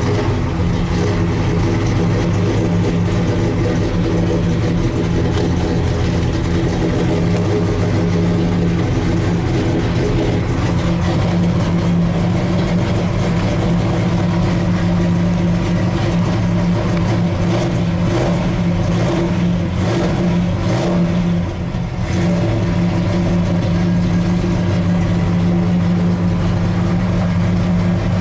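Ford F100 pickup's engine running at a steady fast idle, just under 2,000 rpm, in the first half-minute after a cold start following about two months of sitting. The level dips briefly once, about three-quarters of the way through.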